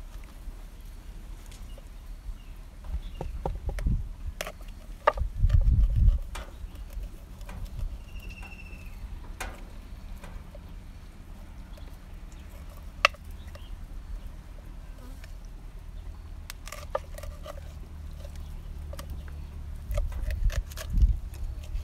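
A knife filleting a snakehead fish on a wooden cutting board: scattered light clicks and taps of the blade against the board and bone as it slices along the backbone, with a few dull low thumps.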